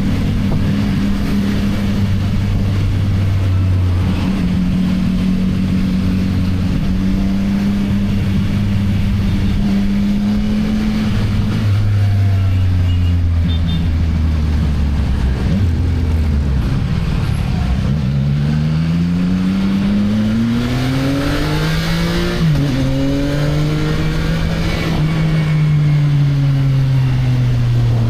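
CFMoto 675NK's three-cylinder engine through its stock exhaust, heard from the rider's seat. It runs steadily, drops away about halfway through, then climbs as the bike accelerates. A quick dip in pitch near the two-thirds mark, like a gear change, is followed by a steady cruise that eases off at the end.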